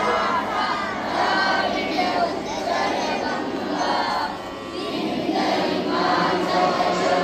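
A large group of schoolchildren's voices singing together, sounding like a crowd.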